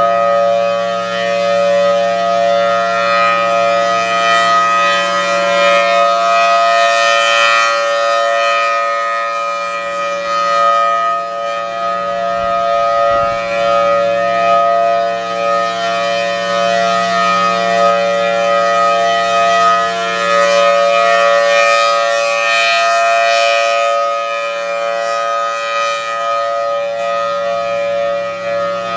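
Federal Thunderbolt 1003 outdoor warning siren sounding a steady, unchanging tone during a test. The sound brightens and swells twice, about 15 seconds apart, as the rotating head sweeps past.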